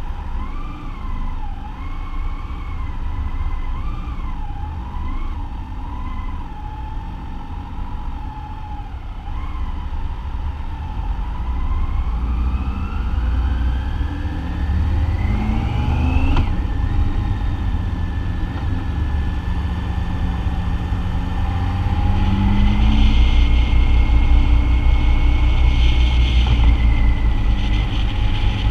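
BMW motorcycle riding in traffic, with a low rumble and an engine whine that wavers at low speed. The whine then rises steadily as the bike accelerates and drops sharply with a gear change about 16 seconds in. After the shift it holds a steady tone while the rumble grows louder.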